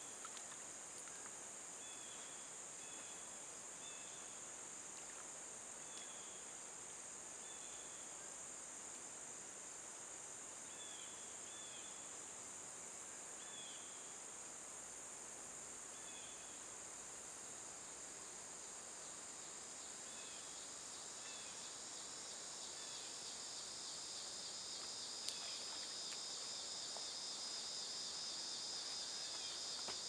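Steady high-pitched chorus of insects such as crickets, with short faint chirps repeating every second or two; the chorus swells a little louder in the last several seconds.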